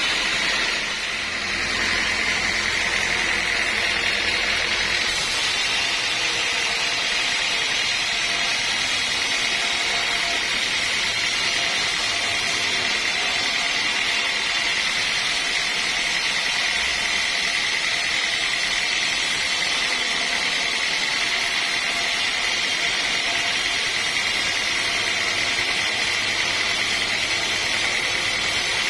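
Sawmill machinery running steadily: a continuous, loud mechanical noise with a sustained high whine.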